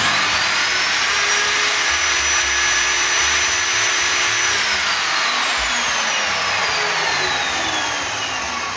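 Modern M-608 jobsite table saw running at full speed with a steady whine. It is switched off about four seconds in, and the motor and blade wind down with a steadily falling whine.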